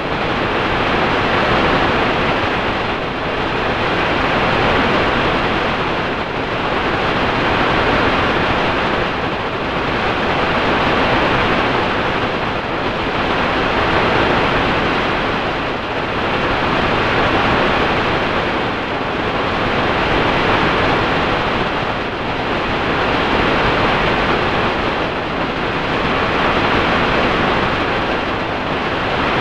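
Steady rushing noise, heavily processed by an audio effect, that swells and ebbs about every three seconds, much like surf.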